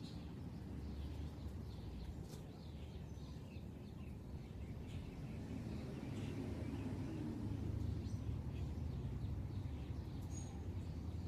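Steady low background rumble with faint, scattered short bird chirps.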